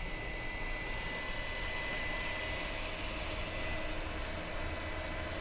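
2008 iMac's cooling fans running at full speed, a loud constant whoosh with a thin steady high whine. They run like this even in a cool room, a fault that new fans did not cure and that the owner suspects comes from the board that controls the fans.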